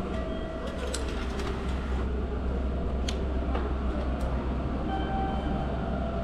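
Train station ambience: a steady low rumble, with a few sharp clicks and short faint beeps about five seconds in.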